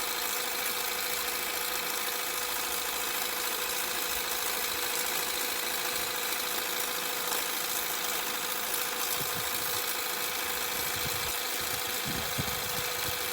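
Mernglow 300W cordless pressure washer running: the battery-powered pump motor makes a steady whine over the constant hiss of the water jet on patio paving. A few low bumps come in near the end.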